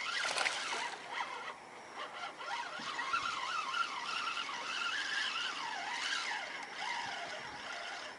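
Fishing reel being cranked to wind in a hooked fish, a whirring squeal that rises and falls in pitch with the cranking speed, stopping at the very end.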